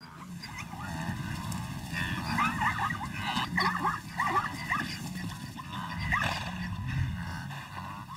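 Animal calls: quick runs of short, high yipping calls in several bursts, over a steady low background.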